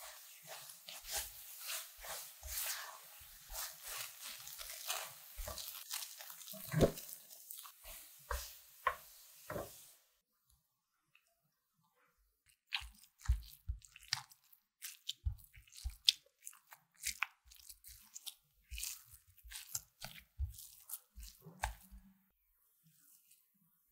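A silicone spatula stirs and scrapes thick custard filling in a nonstick saucepan, a dense run of scraping and squelching as the filling cooks down into a clumpy paste. It stops about ten seconds in. After a short pause, a spatula presses and folds the filling in a glass bowl, with separate squishes and taps against the glass.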